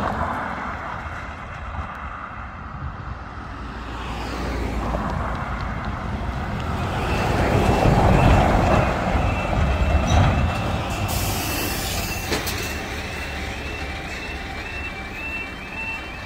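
Road vehicles driving over a level crossing: a car at the start, then a heavy lorry whose rumble is the loudest thing, around eight seconds in. From about seven seconds in, the crossing's warning alarms sound, a short rising tone repeating about twice a second. They signal that the barriers are about to lower for an approaching train.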